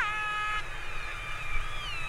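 Orca (killer whale) calls recorded underwater: a sharp falling call that breaks into held, multi-toned notes stopping abruptly about half a second in, then fainter gliding whistles and another falling call near the end, over a low steady water rumble.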